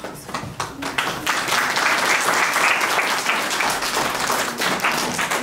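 Audience applauding, a roomful of people clapping, swelling about a second in.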